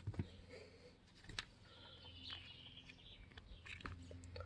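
Faint clicks and light rustling of fishing line and a plastic line spool being handled, over a low steady hum, with faint bird chirps in the background about two seconds in.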